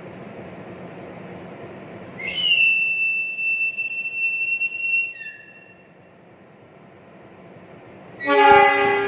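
A train conductor's whistle blown in one long high blast of about three seconds, its level wavering, ending in a brief lower note: the signal that the train is ready to depart. Near the end a loud tone of several notes starts suddenly and slowly fades, over a steady low hum.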